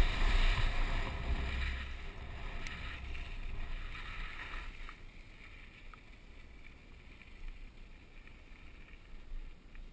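Wind rushing over a helmet-mounted action camera's microphone and mountain bike tyres rumbling over grass and then a dirt road, fading as the bike slows down about halfway through. A few faint clicks follow in the quieter part.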